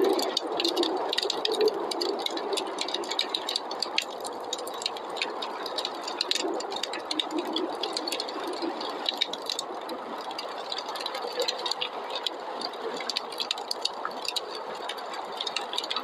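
Wood fire crackling with many small, irregular pops over a steady rushing noise of snowstorm wind.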